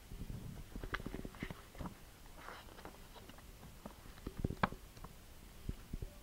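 Handling noise from unpacking: scattered light knocks and clicks, with a brief rustle of paper or plastic wrapping about two and a half seconds in.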